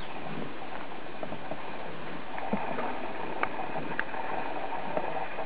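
Riding an elephant along a dirt trail: a steady rustling noise with a few scattered light clicks and knocks from the ride.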